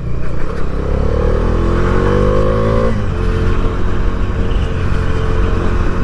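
Bajaj Dominar 400's single-cylinder engine and exhaust running under throttle. Its pitch rises from about half a second in until about three seconds in, then falls and holds steady.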